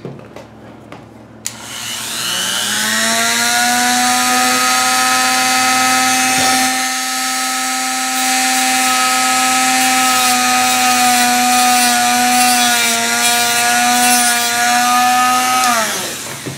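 Handheld rotary tool with a cut-off disc spinning up with a rising whine, running at steady high speed while grinding away a small plastic tablet button, then winding down with a falling whine near the end.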